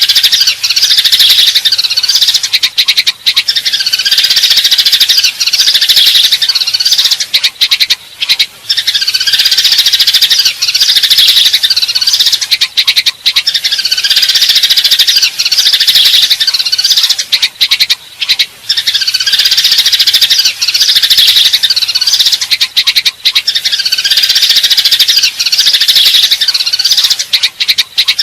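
Eurasian tree sparrows chirping in a loud, dense, continuous chatter with brief breaks every few seconds: the agitated calls of sparrows fighting.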